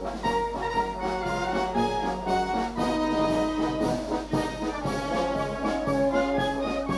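Wind band of brass and woodwind instruments playing a piece live, with held brass chords whose notes change every half second or so.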